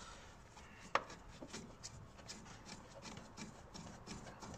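A screwdriver and hands working at the plastic air filter housing: faint clicks and rubbing, with one sharp click about a second in.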